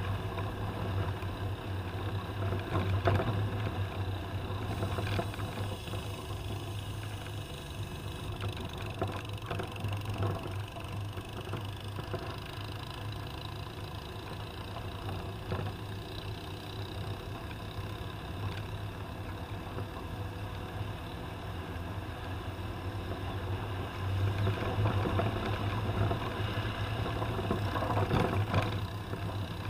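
Toyota Land Cruiser engine running with a steady low hum and occasional knocks. It grows louder for a few seconds near the end.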